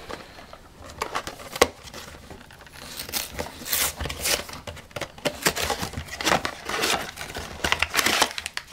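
Hands opening a cardboard Vinylmation blind box: a single sharp tap about a second and a half in, then a run of crinkling and tearing of the packaging from about three seconds in.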